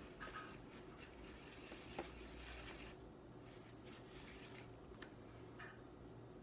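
Faint scratchy rubbing of a paintbrush being worked over a crystal, with two light clicks about two and five seconds in.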